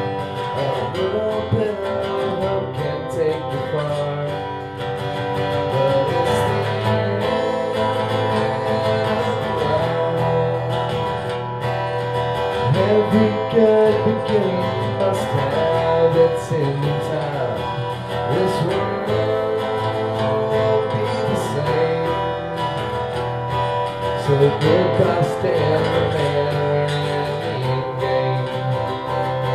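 Acoustic guitar music, strummed.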